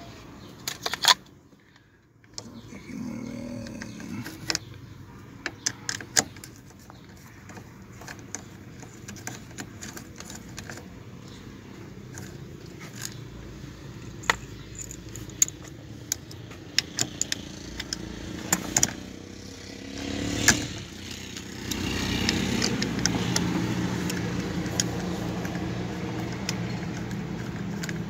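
Sharp clicks, taps and scrapes of a screwdriver working against the plastic housing of a steering column's turn-signal and wiper switch as it is pried loose. About 22 seconds in, a steady engine hum comes up and runs on under the clicks.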